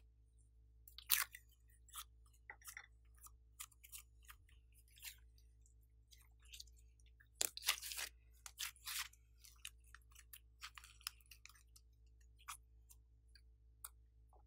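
Hands working soft clay out of a small plastic tub and kneading it: scattered sticky crackles and clicks, densest from about seven to nine seconds in.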